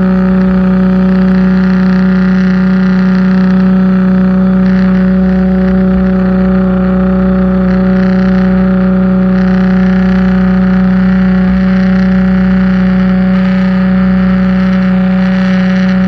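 Pressure washer running steadily: a loud, even drone with a hiss of spray over it.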